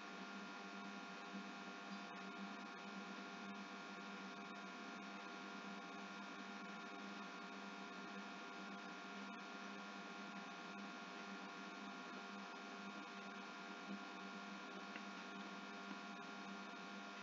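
Faint steady electrical hum and hiss with several steady tones, the background noise of a recording microphone, with a few faint ticks.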